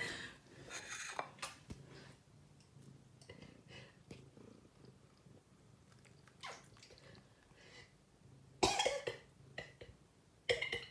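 A cat purring softly and steadily, with a short, louder noisy sound about eight and a half seconds in.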